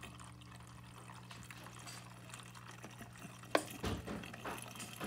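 Water pouring in a thin stream from a watering-can spout into the plastic filling tube of a self-watering planter, filling its low reservoir; a faint steady trickle. A single sharp tap about three and a half seconds in.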